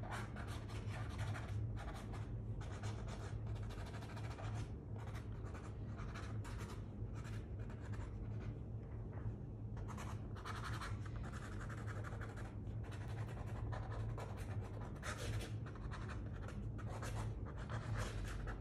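Fine-tip ink pen scratching across thick paper in many short, quick line strokes with brief pauses, over a steady low hum.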